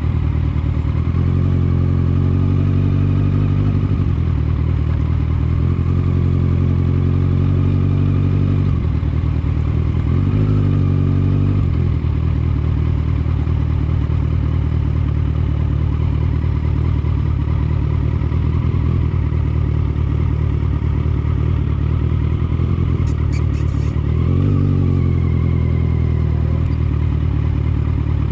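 A vehicle's engine running while under way, with constant low rumble. Its note rises and falls several times in the first twelve seconds and rises again about twenty-four seconds in, as the speed changes.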